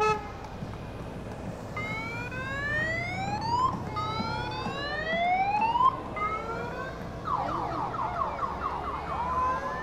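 An electronic siren sounding over the low, steady running of motorcycle engines: a few slow rising wails, switching about seven seconds in to a fast yelp, then a brief steady tone near the end.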